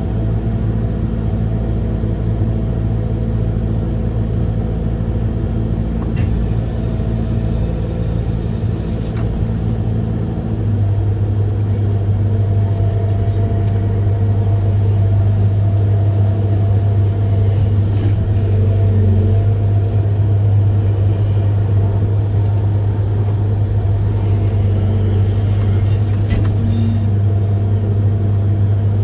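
Amphibious excavator's diesel engine running steadily with a deep hum. About ten seconds in, its note drops a little and it gets louder. A few faint clicks or knocks sound over it.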